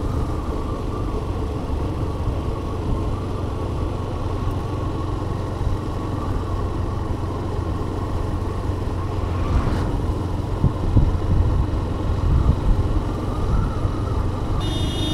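Motorcycle riding along at a steady speed: engine hum mixed with wind rumbling on the handlebar camera's microphone, a little gustier past the middle.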